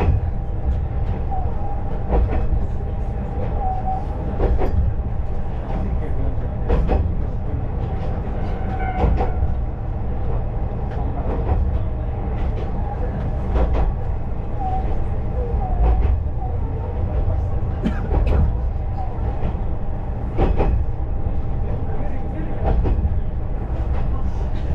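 KiHa 20 diesel railcar running along the line: a steady low rumble of engine and wheels, with the clack of the wheels over rail joints about every two seconds.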